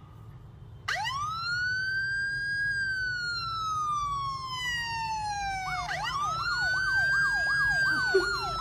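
Siren wailing: a tone that rises sharply about a second in and then slides slowly down, followed by a second rising wail joined by a fast warbling yelp of about two and a half sweeps a second.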